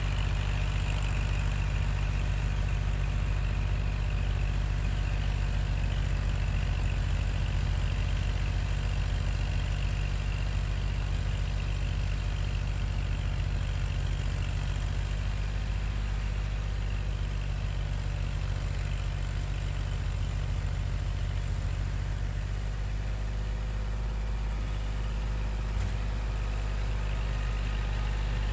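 Kubota L2501 compact tractor's diesel engine running steadily, powering a rear-mounted 68-inch MK Martin Meteor snowblower as it throws snow.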